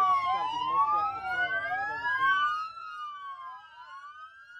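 Police car sirens wailing, two or more overlapping, each rising and falling in pitch. A low rumble underneath cuts out after about two and a half seconds, and the sirens go on more quietly.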